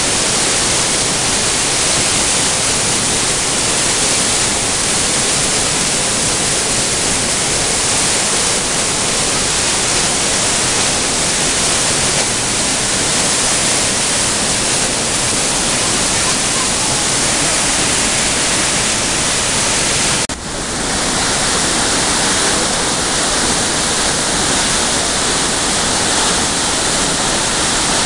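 Mountain waterfall and torrent carrying a lot of water down a narrow rock gorge: a loud, steady rush of water. About twenty seconds in it cuts out for an instant and comes back with a slightly brighter tone.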